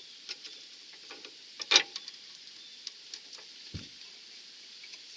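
Light metallic clicks and taps from tools and suspension parts being handled, with one louder clank about two seconds in and a dull thump a couple of seconds later.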